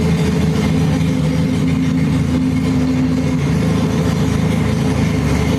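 Cruiser motorcycle engine idling steadily at an even pitch.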